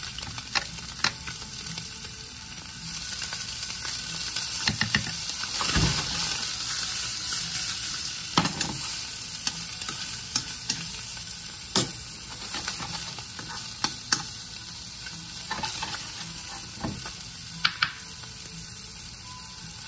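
Snapper fillets sizzling in olive oil in a nonstick frying pan, a steady hiss that swells for a few seconds early on. Sharp clicks and scrapes of a spatula against the pan come now and then as the fillets are turned.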